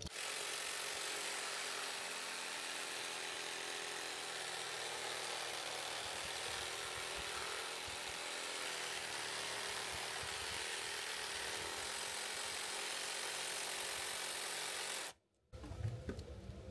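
Power saw running steadily as it cuts through ivy, an even motor-and-cutting noise that stops suddenly about a second and a half before the end.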